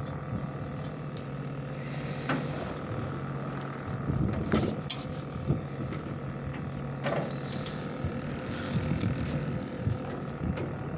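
A fishing boat's engine running with a steady low hum, with a few brief clicks and knocks on top.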